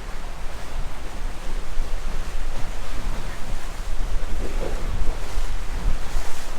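Wind buffeting the microphone with a gusty low rumble, over a steady wash of water.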